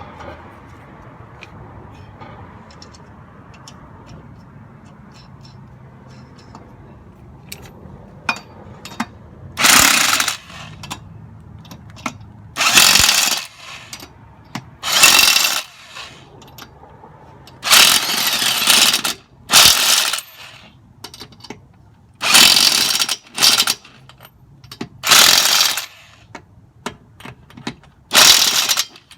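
Tool work during a tire repair: a low steady background, then from about ten seconds in, about ten loud, short bursts of mechanical tool noise, each lasting about a second, at irregular intervals.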